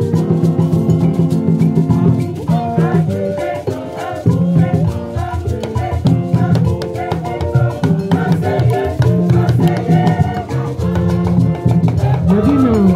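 A large choir singing an upbeat song, with many voices together, backed by drums and shaker-like percussion keeping a steady rhythm.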